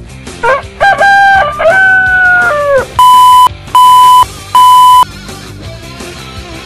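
A rooster crowing, then an alarm clock giving three long beeps at one steady pitch, over background music.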